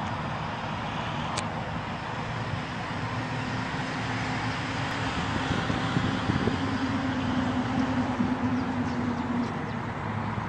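Steady vehicle noise: an engine running with a low, steady hum, slightly louder from about six seconds in.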